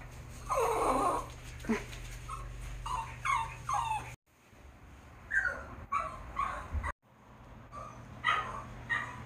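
Small dog whining with short high yips, several falling cries in quick runs, broken by brief pauses.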